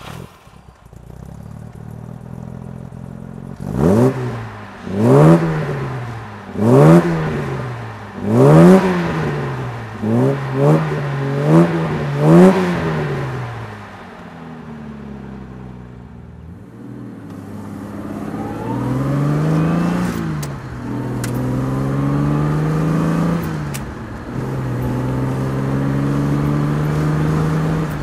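1966 Jaguar E-type 4.2-litre straight-six idling, then blipped sharply about eight times in quick succession, each rev climbing and falling back, before settling to idle again. From about halfway through it pulls away, the engine pitch climbing and dropping back twice as it changes up, then running steadily.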